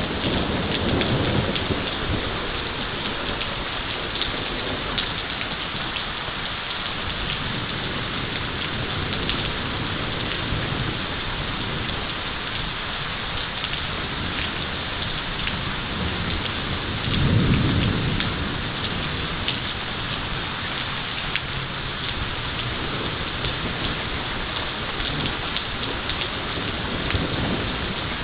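Heavy thunderstorm rain falling steadily. Low rumbles of thunder come in the first second or so, and a louder roll comes a little past the middle.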